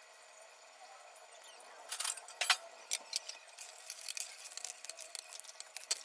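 Kitchen utensils clinking against dishes: two sharp clinks about two seconds in, then a string of lighter, irregular clicks.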